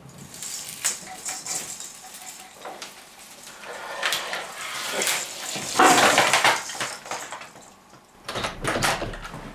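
Decorated Christmas tree rustling, its branches and hanging baubles clinking as it is pawed and pushed, then the tree crashing over onto the floor about six seconds in.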